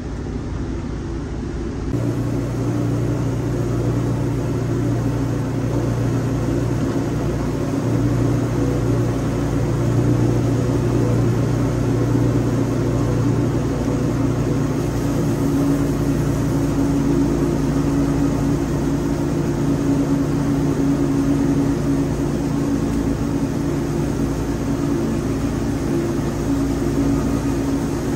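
Wood-Mizer LT40 band sawmill running with a steady engine drone. The sound shifts abruptly about two seconds in, then holds steady.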